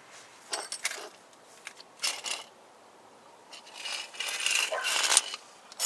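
Small metal parts and hand tools clinking against metal: a few short clinks, then a longer rattling, scraping stretch in the second half.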